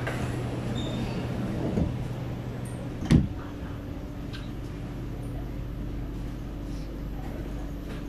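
Sliding passenger doors of a C751B metro train closing, shutting with one sharp thud about three seconds in. A steady low hum from the standing train runs under it.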